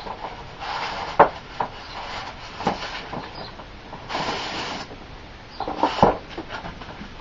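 Unboxing handling sounds: packaging rustling twice, with sharp clicks and knocks of the plastic pistol crossbow and its parts, the loudest about a second in and again about six seconds in.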